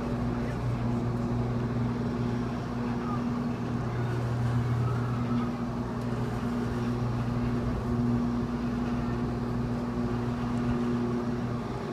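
Steady low machinery hum that never lets up.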